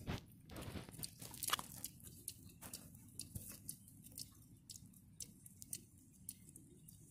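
Two baby hedgehogs foraging in dry leaf litter, making irregular small clicks and crackles as they root and chew, busiest in the first two seconds.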